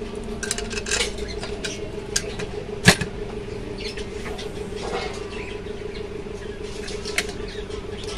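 Small metal clicks and scrapes of hands handling the sewing machine motor's bracket and fittings, with one sharp clank about three seconds in, over a steady hum.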